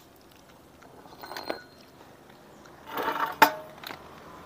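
Metal tools and parts clinking and knocking as a scooter's CVT clutch assembly is dismantled: a few light clinks, then a louder run of clatter ending in one sharp, ringing metal knock.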